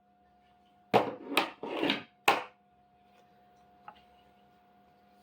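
Hand tools and metal machine parts knocking and clinking on a workbench during assembly: four sharp knocks in quick succession about a second in, then a single faint tick.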